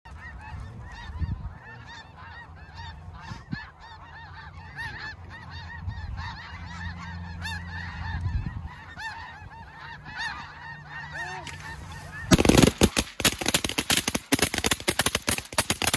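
A large flock of snow geese calling overhead, a dense chorus of many overlapping honks. About twelve seconds in, rapid shotgun fire from several guns breaks out, many shots close together and much louder than the geese.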